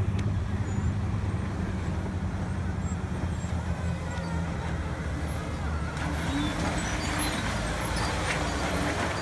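Jeep Wrangler engine running steadily at low revs as the Jeep crawls up a rock step.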